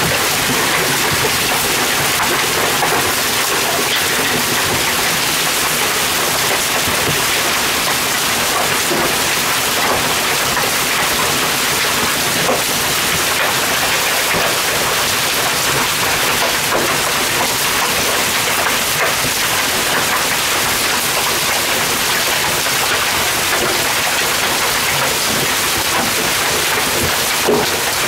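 Hailstones and rain pelting a lawn and driveway: a dense, steady hiss peppered with countless small impacts, with one sharper knock near the end.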